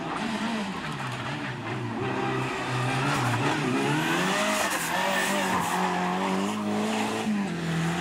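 Race-prepared hatchback's engine revving hard through a cone slalom, its pitch rising and falling repeatedly as the driver works the throttle.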